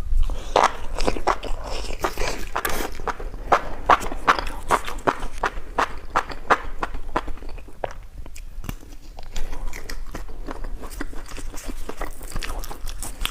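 A person biting and chewing food, with a quick run of crisp crunching clicks that thins out briefly past the middle.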